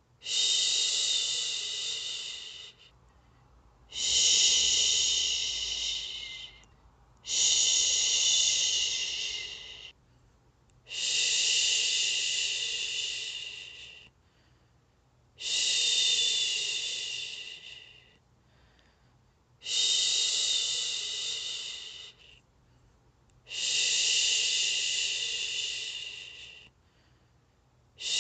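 A woman shushing in long, repeated 'shhhh' hisses, the soothing shush used to settle a baby to sleep. About seven shushes come every three to four seconds. Each starts strongly and fades away, with a short pause for breath between them.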